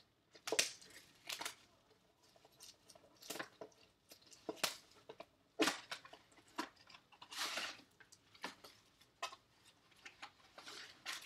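A trading-card box and its wrapped packs being handled and opened by hand: scattered rustles, scrapes and light taps of cardboard and wrapper, with a few louder rustles in the second half.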